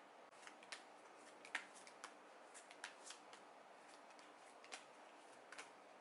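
Faint, irregular light clicks and taps of tarot cards being shuffled and handled.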